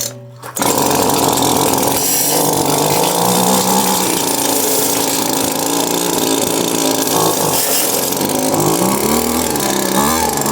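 Small petrol engine of a handheld garden tool starting up about half a second in and running steadily on half choke, now fed through newly replaced fuel hoses; its speed swells and dips a few times near the end.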